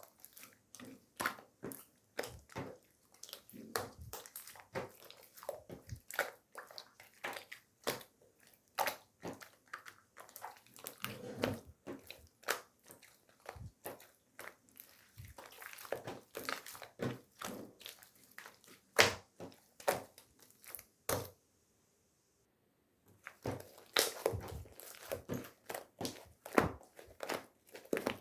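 Clear slime with strawberry charms mixed in being squeezed, folded and poked by hand: a quick, irregular stream of wet sticky clicks and pops with squishes between them. It stops for about a second and a half a little past three quarters through, then carries on.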